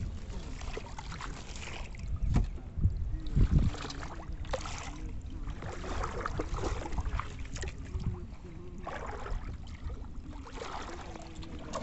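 Water sloshing and splashing around a person wading in shallow muddy water, with a few heavy low thumps about two to three and a half seconds in.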